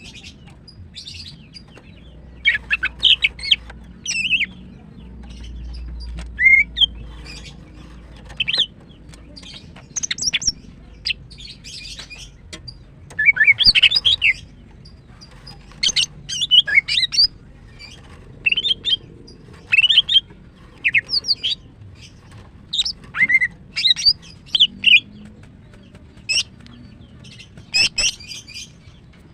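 Female green leafbird (cucak ijo) calling: short, sharp, high chirps and quick chattering phrases in irregular bursts. It is the female's call to a male, which keepers play to get a male that has gone quiet to sing.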